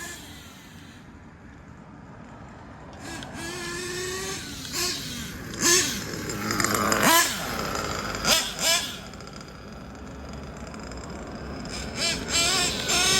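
Small nitro engine of a Kyosho Inferno Neo ST 3.0 RC truggy being driven, its high-pitched note rising and falling with the throttle. There is a quieter stretch early on and several sharp revs in the middle and near the end.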